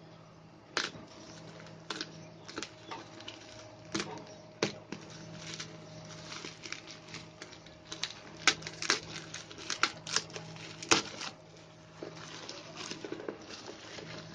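Packaging being handled and unwrapped: irregular crinkling, rustling and sharp clicks, loudest and most frequent around the middle, over a faint steady hum.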